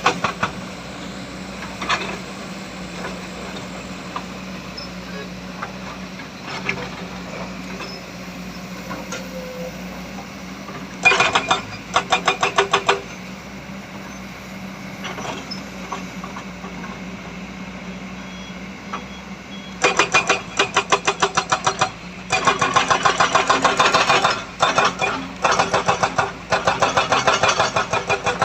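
Heavy diesel engines of a dump truck and excavator running, with a steady low hum. Two stretches of loud, rapid pulsing, about five or six beats a second: a short one about a third of the way in and a longer one through the last third.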